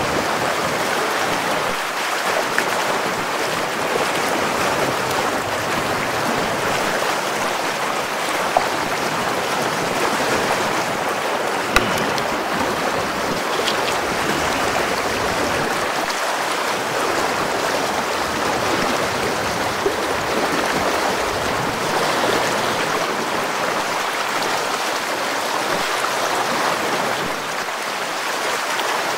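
Fast river current rushing and splashing steadily around a wading angler's legs, with a few short sharp clicks.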